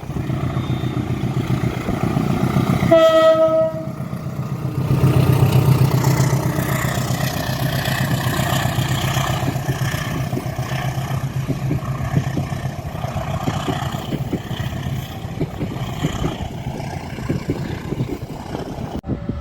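A train running close past: one short horn blast about three seconds in, then the steady rumble of the train and its wheels clattering on the rails.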